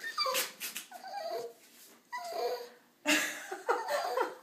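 French bulldog vocalizing in four short whining calls that rise and fall in pitch; the last, about three seconds in, is the loudest and longest.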